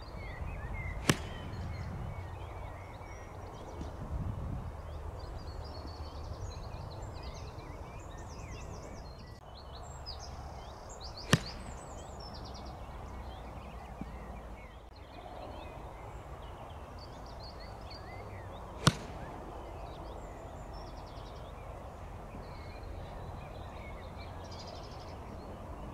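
Golf club striking a ball off a tee mat: three sharp cracks of contact, about ten and then seven seconds apart. Between the shots there is low wind rumble and scattered birdsong.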